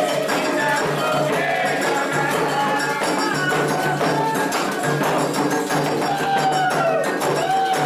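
Candomblé ritual music: hand drums and rattling, clinking percussion keep up a steady rhythm while voices sing a chant for Oxossi.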